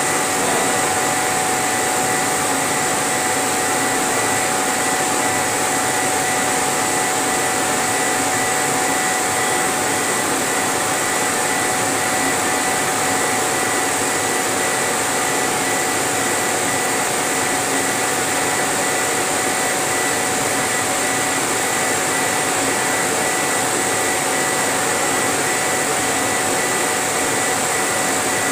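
Laser engraving machine running as it engraves a wooden sheet: a steady, blower-like rushing of air with a constant whine over it.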